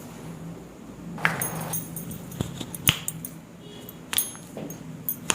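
Handling sounds of a chiropractic adjustment: a handful of separate sharp clicks and knocks, the loudest about three seconds in, with a brief rustle after the first one, about a second in.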